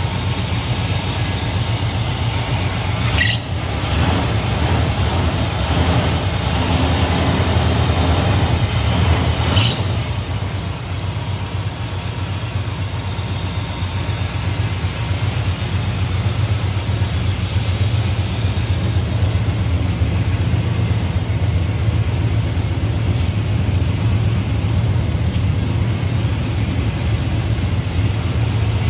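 Chevy 350 small-block V8 running steadily as it warms up after sitting for about three years; it sounds healthy, with good oil pressure. Two brief sharp sounds come about 3 and 10 seconds in.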